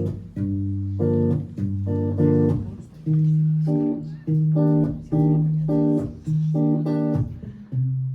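Guitar playing an instrumental intro: plucked chords struck in a steady rhythm over held low bass notes, the bass shifting to a higher note about three seconds in.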